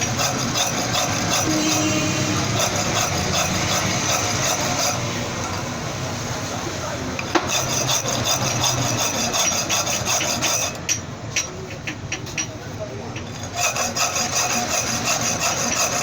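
Metal being filed by hand, a continuous run of rough rasping strokes on the motorcycle hub's key. About eleven seconds in it eases to a few separate clicks for a couple of seconds, then the filing resumes.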